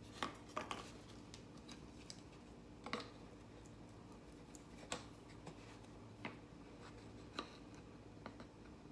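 Scattered light clicks and taps of plastic being handled: a cinnamon jar's lid coming off and measuring spoons knocking against it, about six separate clicks over a faint steady low hum.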